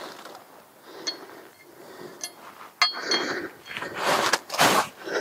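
Small metal brake parts clinking against a cast caliper carrier, with a sharp ringing clink about three seconds in. Plastic parts packaging rustles near the end.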